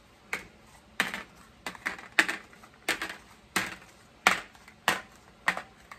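Small hard puto cups being set down one by one on a metal tray, making about ten sharp clacks at an uneven pace of one or two a second.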